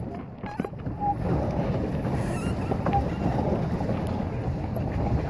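Steady rumble of wind on the microphone mixed with water churning and lapping around a pedal boat under way.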